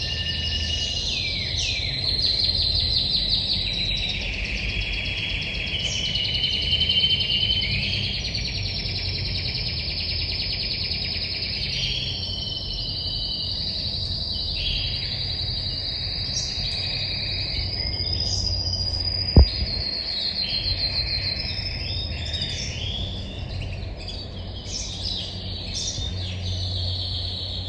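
Red-factor canary singing a long, continuous song of rapid trills and rolling warbled phrases. A single sharp click about two-thirds of the way through.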